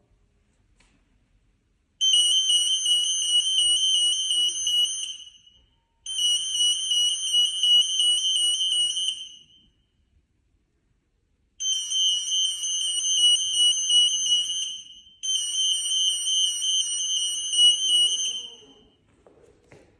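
Acousto-magnetic (58 kHz) EAS security gate alarm going off four times, about three seconds each, a steady high beep with a fast pulsing warble over it: the alarm that sounds when the gate detects an active AM soft label.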